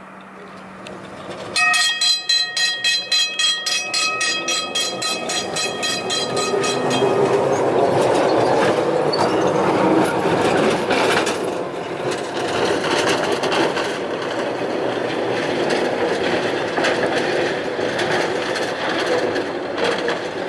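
Hansa GT4c tram's warning bell ringing rapidly for a few seconds. The tram's running noise, wheels on the rails, builds up as the bell fades and carries on as it goes by.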